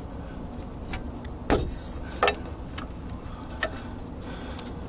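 A wrench working on the rear wheel cylinder's brake bleeder screw: a few sharp metallic clicks and clinks, the loudest about a second and a half in.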